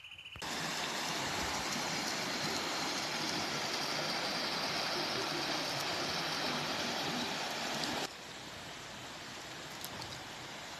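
Running water of a stream, a steady rushing noise that drops suddenly to a quieter rushing about eight seconds in.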